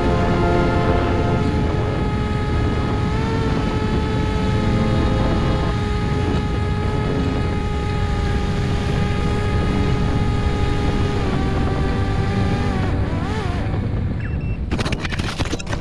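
Brushless motor and propeller of an FPV flying wing, recorded on board, running with a steady whine over wind rush. The whine drops in pitch about eleven seconds in as the throttle comes back, and near the end a quick run of scraping knocks follows as the wing touches down on the ground.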